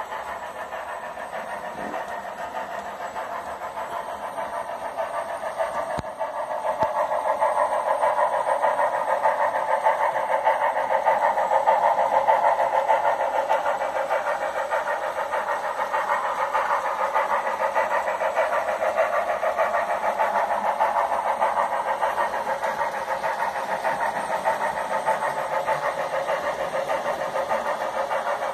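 Sound decoder of an HO scale CP 2816 H1b Hudson model steam locomotive running steadily, giving a rapid steam chuff. The sound is thin, with no bass, and gets louder about seven seconds in.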